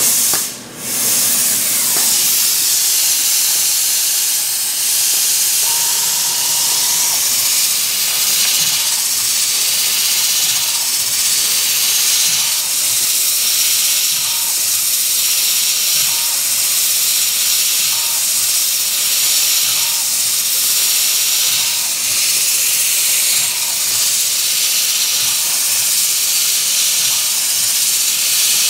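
Compressed-air mist coolant sprayer on a lathe, hissing loudly and steadily as it sprays the cutting tool; it comes on within the first second. A faint short tone repeats about every two seconds beneath the hiss.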